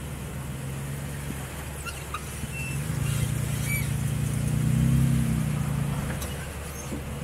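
Jeep engine pulling at low speed while rock crawling, the throttle coming up about three seconds in, peaking around five seconds and easing off near the end as the Jeep climbs over the rocks. A few faint clicks over the engine.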